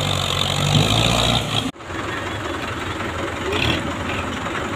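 Belarus tractor's diesel engine working under load, pulling a loaded trolley, with a steady hiss over it. Under two seconds in the sound cuts off abruptly and carries on quieter and rougher.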